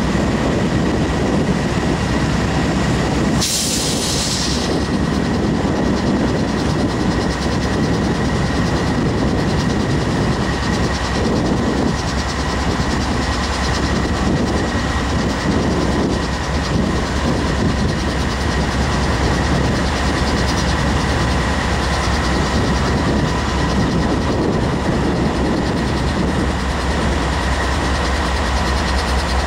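CSX GE diesel-electric locomotive idling while standing still: a steady low engine drone with a constant high whine over it. There is a short burst of air hiss about three and a half seconds in.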